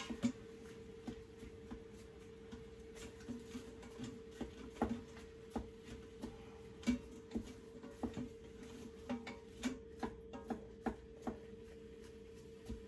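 A spoon scraping and knocking in an Instant Pot's stainless inner pot, stirring ground beef and onion on the sauté setting, in irregular light strokes. A steady hum runs underneath.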